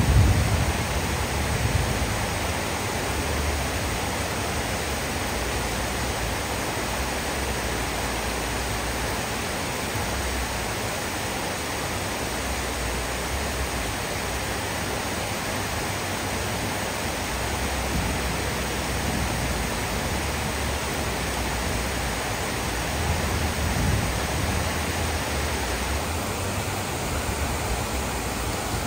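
Heavy rain pouring steadily onto trees and rooftops, a dense even hiss, with a low rumbling that swells and fades underneath every few seconds.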